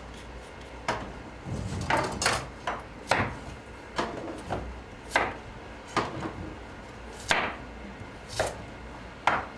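Knife cutting carrot on a wooden cutting board: about ten separate knocks of the blade striking the board, roughly one a second and unevenly spaced.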